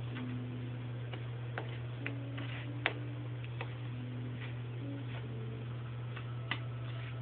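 Scattered light clicks and taps at an irregular pace, the sharpest about three seconds in and another near the end, over a steady low hum.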